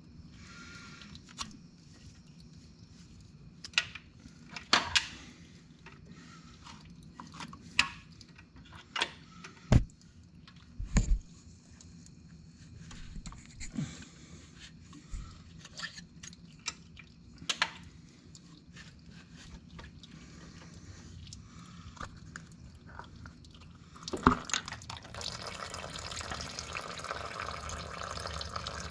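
Pliers clicking and clinking against the metal brake actuator rod seal and its housing, a few sharp knocks among them. Near the end a louder click as the seal comes free, then a steady stream of oil running from the rod hole and splashing into a drain pan.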